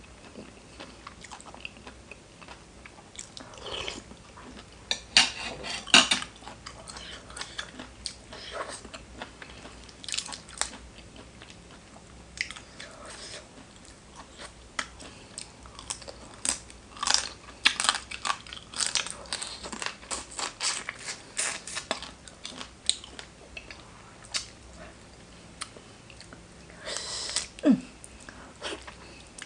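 Close-miked chewing and biting of crunchy food, with irregular loud crunches, heaviest about five to six seconds in and through the second half.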